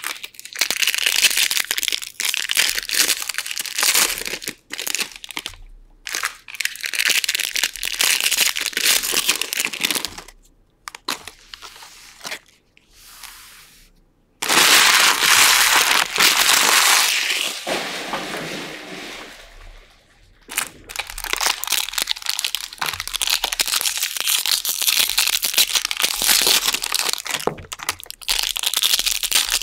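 Foil wrappers of Bowman Draft baseball card packs crinkling and tearing as the packs are ripped open and the cards handled. The rustling comes in stretches of a few seconds with short pauses, is quieter about ten seconds in, and is loudest just after the middle.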